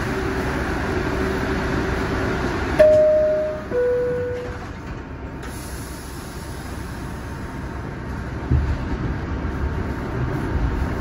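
R62A subway car's two-tone door chime, a high tone and then a lower one about three seconds in, signalling the doors are closing, over a steady hum from the stopped car. From about eight and a half seconds in, a low rumble builds as the train starts pulling out of the station.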